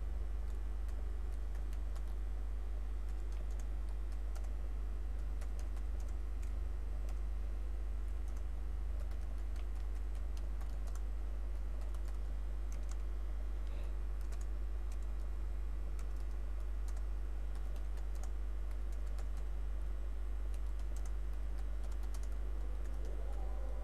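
Computer keyboard being typed on: scattered, irregular light key clicks over a steady low hum.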